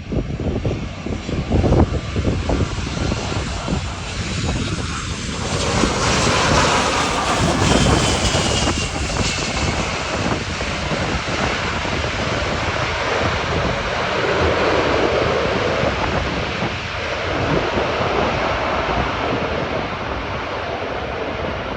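British Airways jet airliner's engines running loud as it lands, swelling about five seconds in and then holding, with a thin whine that falls slightly about eight seconds in. Wind buffets the microphone during the first few seconds.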